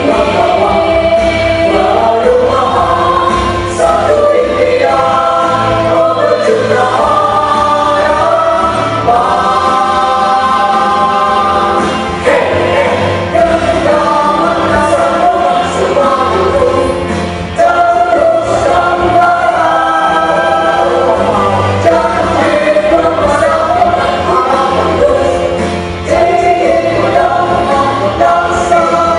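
A choir singing in several-part harmony, with held chords that shift from phrase to phrase and brief breaths between phrases.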